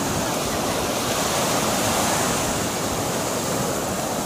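Ocean surf breaking and washing up the beach: a steady, even rush of waves.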